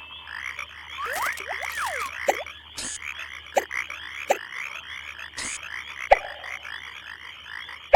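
Cartoon frog sound effects: a chorus of many frogs croaking in a quick, regular run, with a few falling whistle-like calls about a second in and several sharp pops scattered through.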